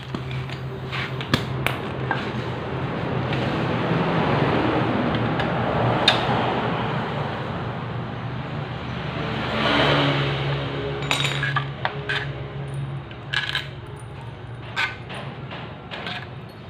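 Motor scooter engine running with a steady hum, rising in a swell twice, with scattered sharp metallic clinks and taps.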